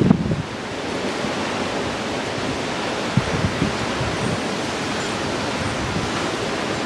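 Strong wind of a desert dust storm blowing steadily: a dense, even rushing noise. A few brief low gusts buffet the microphone about three seconds in.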